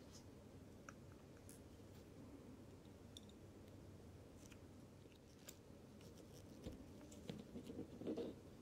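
Faint, scattered small clicks of steel tweezers touching parts of a Ricoh automatic watch movement, then a denser run of clicks and rustling near the end as gloved fingers handle the movement in its metal holder.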